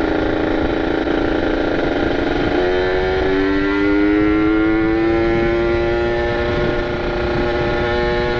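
Kawasaki Ninja 150 RR's ported single-cylinder two-stroke engine pulling on the road while being run in. The engine note holds steady, then changes about three seconds in and climbs slowly in pitch as the bike gathers speed, levelling off near the end.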